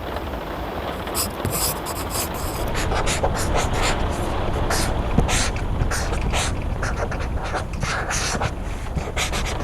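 Pencil writing on paper in quick, irregular scratching strokes, sparse in the first second and then almost continuous, over a steady hiss of rain.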